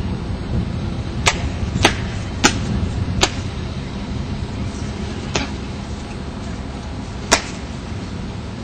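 Sharp hand slaps from a pencak silat form: six crisp smacks, four in quick succession in the first three seconds, then two more spaced out, over a steady low background rumble.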